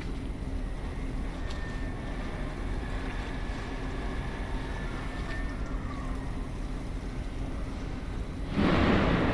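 Steady low rumble of container-terminal machinery and traffic, with a faint thin high tone for a few seconds in the middle. Near the end comes a sudden loud rushing burst lasting under a second.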